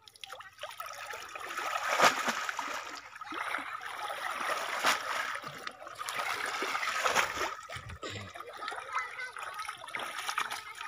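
Water splashing and trickling off a wet cast net as it is gathered and lifted out of shallow water, in uneven surges with a few louder splashes; it thins to scattered drips and splashes near the end.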